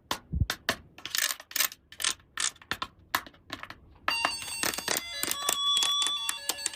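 Small hard plastic toy pieces clicking and clattering as they are handled, with short rustles. About four seconds in, a tinkling bell-like melody starts under the clicks.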